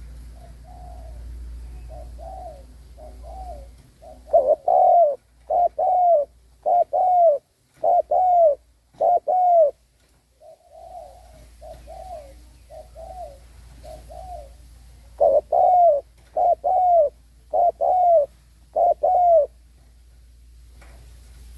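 Spotted dove cooing in repeated phrases: a few soft, low coos lead into a run of quick, loud coos, and the phrase comes twice. This is the bird's strong, rapid cooing as used by a decoy to call in other doves.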